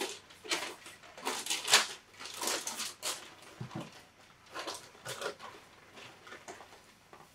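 Tissue paper rustling and crinkling in irregular bursts as it is lifted in a shoebox and cloth dust bags are pulled out.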